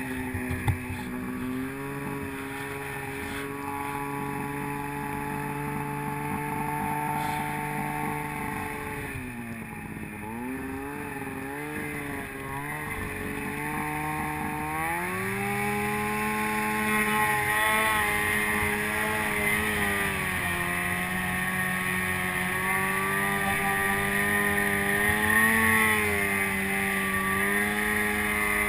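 Snowmobile engine running under throttle, with a brief knock just after the start. About ten seconds in the revs dip and waver up and down, then climb and hold steadily higher.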